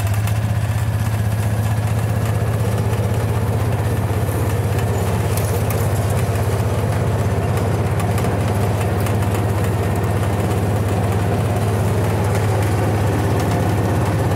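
Engine of an old farm utility vehicle (a mule) running steadily at a low, even pace, loud through a muffler that has a hole rusted out in it.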